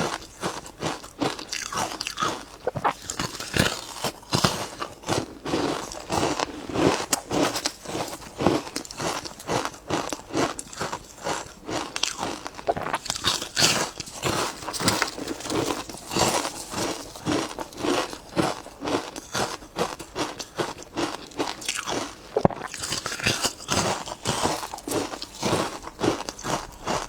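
Ice being bitten and crunched between the teeth, a steady run of sharp, irregular crunches several times a second.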